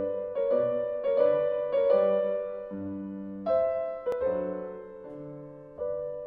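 Slow, gentle piano music: chords and single notes, each struck and left to fade.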